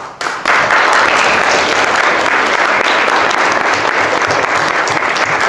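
Audience applauding: many hands clapping, starting suddenly and holding steady and loud.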